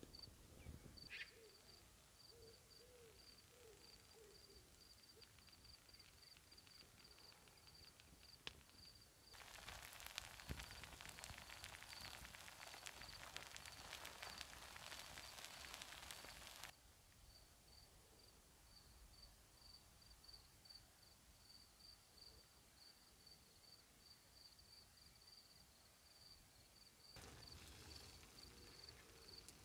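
Crickets chirping faintly in an even, high-pitched pulse, about three chirps a second. Partway through, a steady hiss starts abruptly, covers the chirping for about seven seconds and cuts off; a similar hiss returns near the end.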